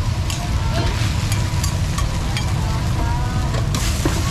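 Busy street-market ambience: a steady low traffic rumble with faint voices and scattered clicks of clatter, and a hiss that swells near the end.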